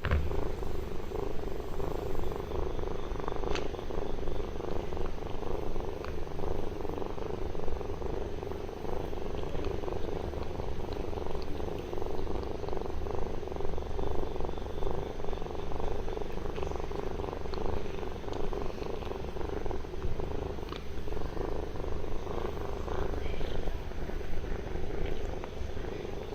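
Ginger tabby kitten purring steadily, a continuous low rapid rumble.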